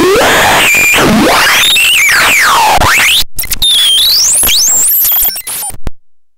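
Catastrophone 3 HX61 electronic noise instrument making harsh noise with wide, swooping pitch glides up and down. It breaks up into stutters and dropouts after about three seconds and cuts off suddenly about a second before the end.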